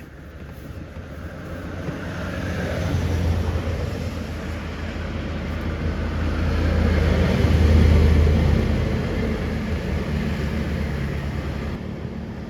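Motor vehicles passing close by: a low engine hum with tyre or wash noise that swells twice, loudest about three and about eight seconds in.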